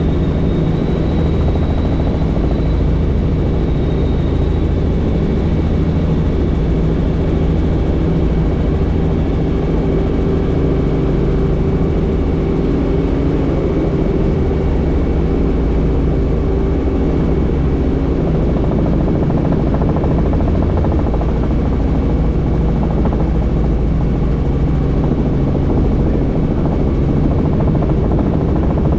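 Helicopter in flight, heard from on board: the rotor and engine make a loud, steady drone that does not change through the stretch.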